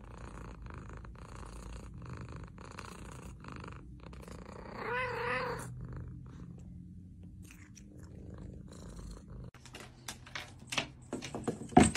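Domestic cat purring steadily, with a short wavering cry about five seconds in. The purring stops suddenly near the end and gives way to several sharp clicks, the loudest just before the end.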